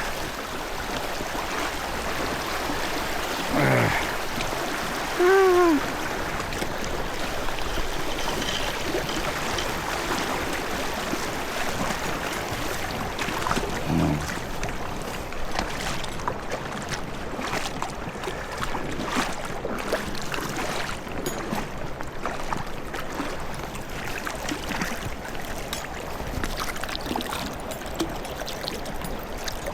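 Steady rush of flowing river water, with two short pitched sounds about four and five seconds in.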